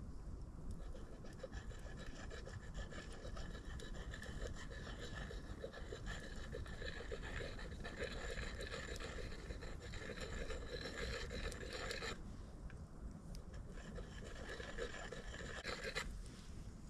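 Axe blade being sharpened by hand, a run of rhythmic scraping strokes of metal against the sharpener. The strokes pause briefly about twelve seconds in, start again, and stop near the end.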